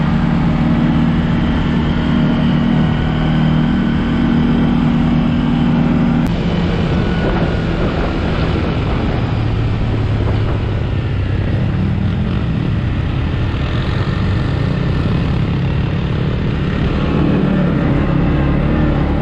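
ATV engine running steadily under way, heard from the quad carrying the camera, with rushing noise over it; the engine note changes abruptly about six seconds in.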